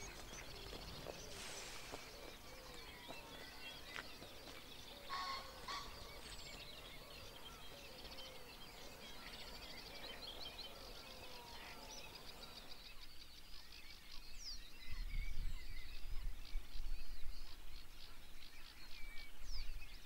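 Many wild birds singing and calling together in a dawn chorus: a busy overlay of short chirps, trills and gliding whistles. About thirteen seconds in the chorus thins, and a low rumble joins it for the last few seconds.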